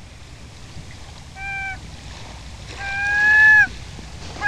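Sound effects of an animated logo intro: a steady hiss like running water, with held pitched tones, a short one about a second and a half in and a longer, louder one around three seconds, each bending down at its end; a third begins right at the end.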